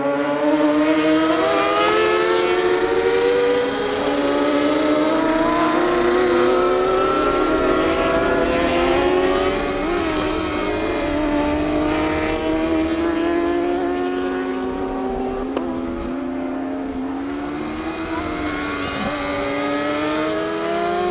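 Kawasaki racing motorcycle engine heard from the onboard camera, revving hard and climbing in pitch through the gears, then falling away on braking and downshifts, over and over.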